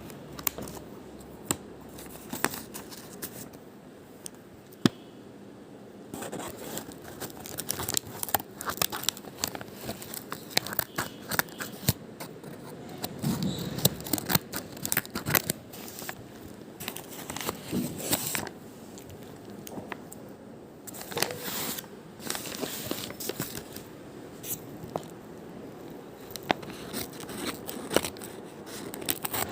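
Packaging being handled and opened by hand: irregular crinkling, tearing and scraping with many sharp clicks and taps.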